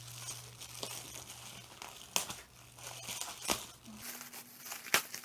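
Packaging crinkling and rustling as a parcel is handled and opened, with a few louder crackles.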